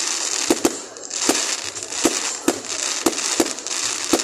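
Fireworks display: about eight sharp bangs at uneven intervals over a continuous crackle and hiss.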